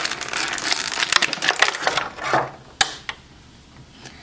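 Plastic packaging crackling and clicking as an action figure is pulled out of its moulded tray, then one sharp click nearly three seconds in, and the handling goes much quieter after it.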